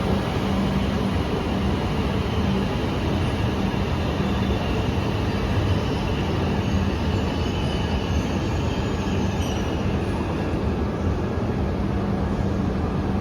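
E5 series Shinkansen train running past a station platform: a steady noise of wheels and running gear with a low hum that comes and goes and faint high whines sliding down in pitch partway through.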